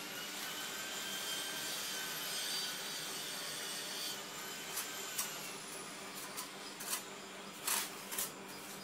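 Ceramic tile being scraped and worked by hand, a steady rasping, with a faint whine that falls away about five seconds in and a few sharp clicks near the end.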